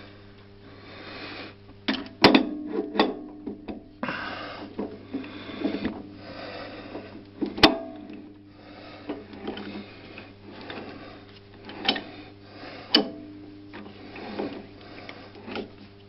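Hand work on a small lathe's chuck: sharp metallic knocks and clinks now and then, about four of them, with scraping and handling noise in between, over a steady low hum.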